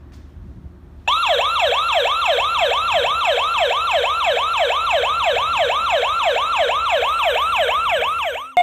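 Wireless door chime alarm sounding its electronic siren tone, the pitch sweeping up and down about three times a second. It starts abruptly about a second in and cuts off abruptly near the end.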